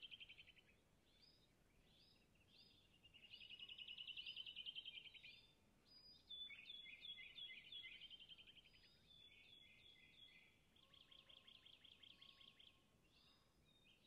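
Faint chirps and rapid trills of small birds, in several bursts, the strongest about three to five seconds in.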